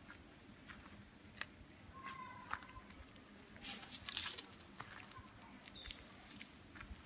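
Wire mesh being handled and pulled straight by hand: light clicks and a louder rustle about four seconds in. Faint short bird chirps come in between.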